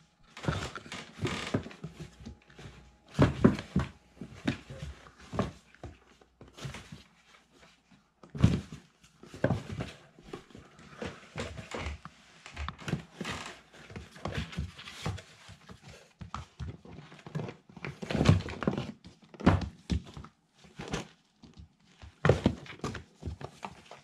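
Kittens scuffling on and inside a cardboard box: irregular thumps, knocks and scratching of paws against the cardboard, with a few louder thuds.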